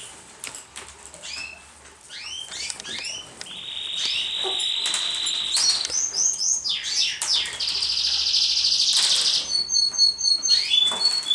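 Birds calling with quick, high chirps and two long, steady high trills, the second one, about eight seconds in, the loudest, then short high pips near the end. Light wing flaps are heard between the calls.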